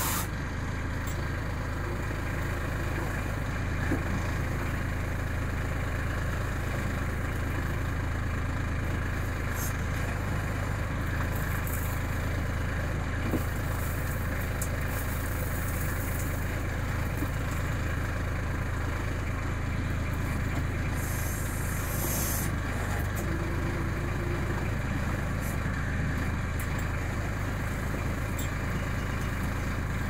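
Branson compact tractor's diesel engine running steadily, driving its backhoe attachment as it digs into a frozen gravel pile. A few light knocks, and a brief hiss about two-thirds of the way through.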